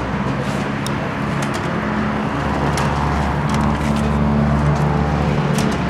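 Motor vehicle engine running close by amid road traffic, a low hum that grows louder in the middle and then eases, with a few sharp clicks over it.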